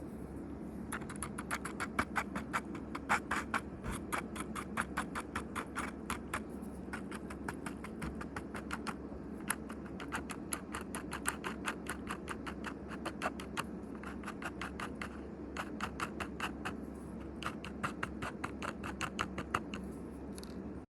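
Rapid, irregular clicking or tapping, several sharp clicks a second with a couple of short pauses, over a steady low hum.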